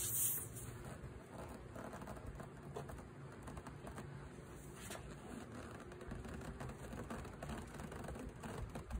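Air hissing from a tire puncture cuts off about a third of a second in as the string plug is pushed into the hole. Faint small clicks and rubbing follow as the plug insertion tool is worked into the tread.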